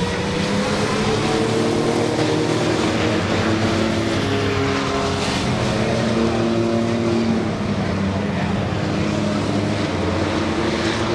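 A pack of compact pickup trucks racing on a short oval track, several engines running at once at different pitches that rise and fall as the trucks pass.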